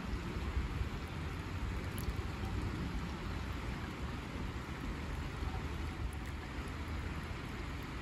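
River flowing: a steady, even rushing of water.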